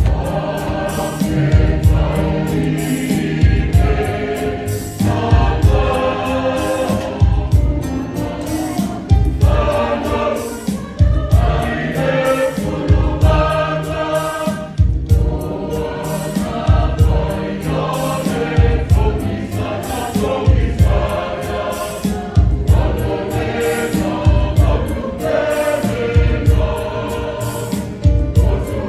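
A large church choir singing together in full voice, with a steady low beat pulsing underneath.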